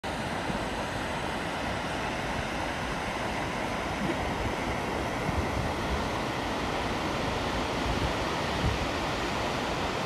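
Gullfoss waterfall rushing steadily, with wind buffeting the microphone in a few brief low gusts.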